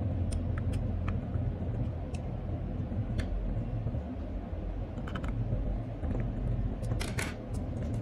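Light clicks and taps of a metal screwdriver against the plastic dome camera housing and circuit board as it is handled, a few at a time, the loudest pair about seven seconds in, over a steady low background rumble.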